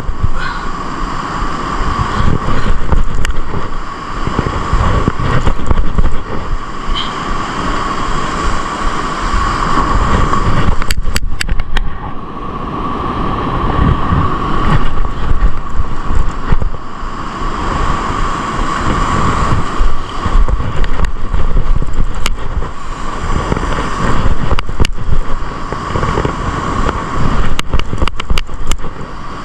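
Wind buffeting the microphone over surf breaking on the beach, rising and falling in gusts, with a few short clicks about a third of the way in and again near the end.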